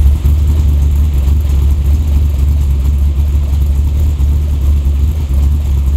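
Chokeless carbureted LT1 V8 in an S10 pickup idling steadily just after a cold start, the engine still cold.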